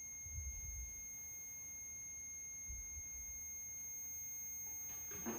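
A steady, thin high-pitched electronic tone, with a few low dull bumps about half a second and three seconds in and a louder rustle near the end.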